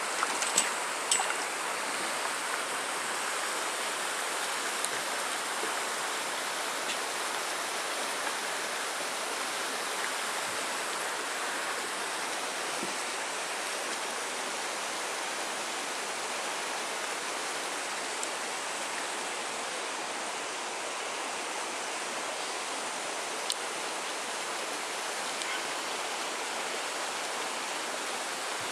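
Steady rush of running water, with a few sharp clicks in the first second or so and one more click about 23 seconds in.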